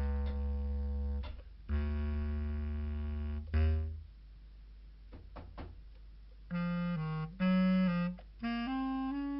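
Film soundtrack music of long held instrumental notes. About four seconds in the notes stop for a couple of seconds, with a few faint clicks, then return at a higher pitch.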